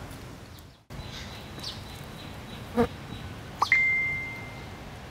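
Outdoor background hiss with a few short, high chirps and a click, and a clear ringing tone that starts suddenly about three-quarters of the way through and fades over about a second.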